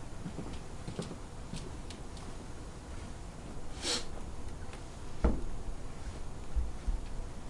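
Footsteps and soft knocks of a person walking across a stage floor in a small room, with a brief rustle about four seconds in and a louder low thump just after five seconds.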